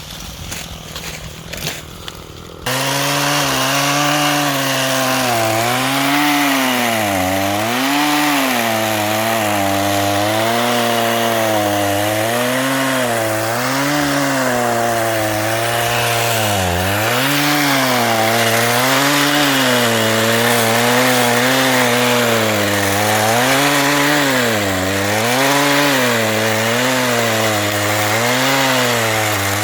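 Two-stroke chainsaw cutting through oak logs, its engine pitch dipping and recovering again and again as the chain bogs under load in the wood. It comes in suddenly about three seconds in, after a quieter stretch.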